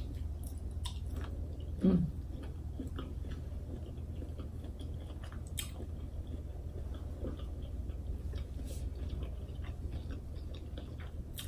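Close-miked chewing of peeled boiled shrimp, with scattered small wet clicks and smacks of the mouth over a steady low hum. A brief hummed "mm" about two seconds in.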